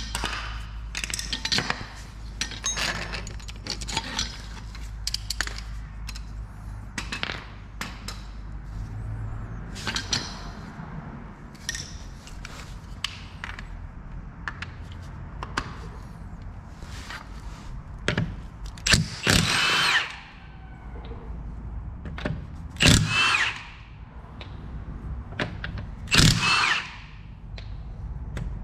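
Power tool run in three short whirring bursts, working the wheel bolts on a Fiat 500's front wheel, with clicks and clatter of tools being handled before them.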